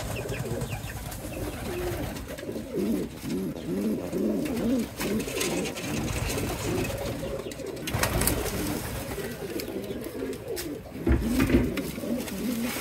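Domestic pigeons cooing over and over in low, rolling coos, with a few knocks and rustles around the middle and near the end.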